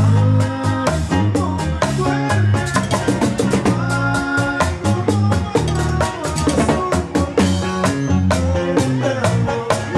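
Live band playing with a steady drum-kit beat, snare and bass drum prominent, over guitars and keyboard.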